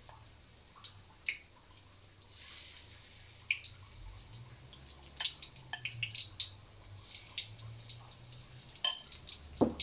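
Battered rambutan fritters deep-frying in a wok of hot oil: scattered crackles and pops from the oil over a faint low hum, with a sharp knock near the end.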